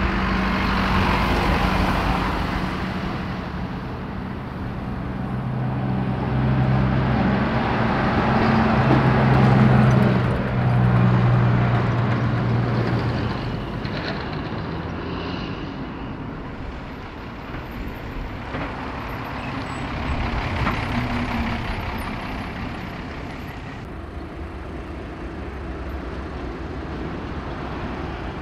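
Road traffic passing: vans, cars and lorries, with a heavy lorry's engine growing louder and then fading away between about a fifth and half of the way through. Lighter traffic noise follows, with another vehicle passing later.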